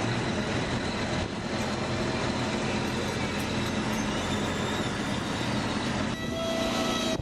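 Loud, steady rumble of a heavy vehicle. About six seconds in, a horn starts to sound one held note.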